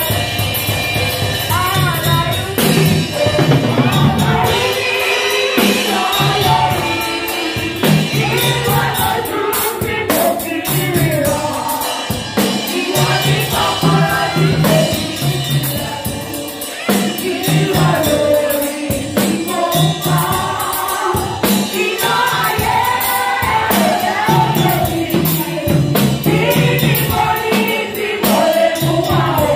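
A small group of women singing gospel music live into microphones, backed by a drum kit with a steady beat.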